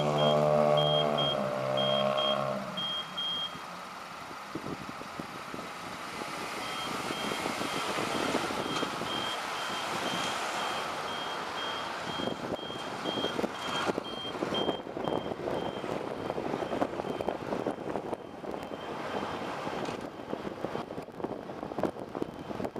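City bus running. Its engine note drops in pitch and fades about two to three seconds in, leaving road noise and rattle. A high electronic beep repeats about twice a second, briefly at the start and again through the middle.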